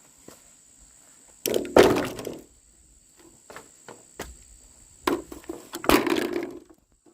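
Two loud cracking crashes about four seconds apart, each lasting about a second, with a sharp crack followed by a crunching, splintering rustle, like dry material being chopped or broken.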